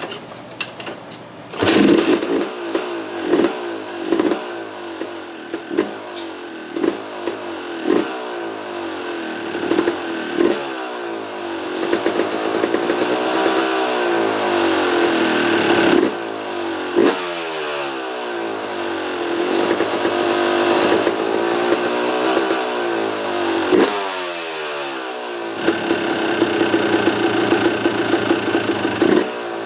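2004 Yamaha YZ250 two-stroke engine catching about two seconds in after being kicked, then running and revved over and over with sharp throttle blips, its pitch climbing and dropping. It runs rich, started without the choke, which the owner puts down to a rich pilot jet or a high float height.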